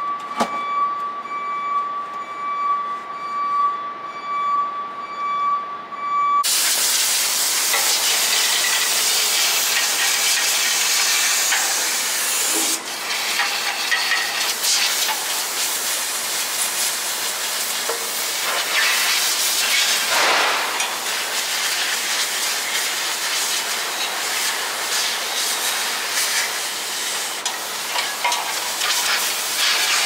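A steady high-pitched whine for about six seconds, then a loud, steady hiss that starts abruptly: a hand-held spray gun on a hose blasting out an emptied diesel tank, the hiss swelling and easing as the jet moves over the metal.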